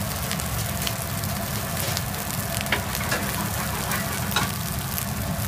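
Mushroom fried rice sizzling in a wok: a steady frying hiss with a few sharp crackles, over a steady low rumble.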